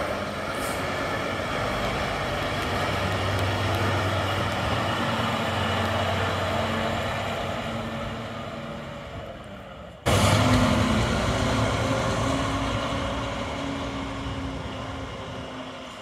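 Scania P 280 refuse truck's five-cylinder diesel engine running as the truck drives slowly past, growing louder as it nears. About ten seconds in the sound jumps abruptly louder, then the engine fades as the truck pulls away.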